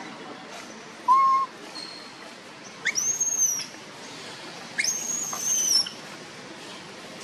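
Baby long-tailed macaque giving a short whistle-like coo about a second in, the call a young macaque uses to call for its mother. Two longer, much higher-pitched calls follow, around three and five seconds in.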